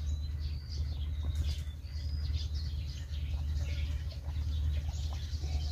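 Small birds chirping faintly in short scattered calls over a steady low hum.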